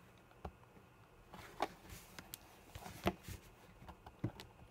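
Faint, scattered clicks and taps, about six in all, of hands handling a small metal project-box enclosure and working its lid loose.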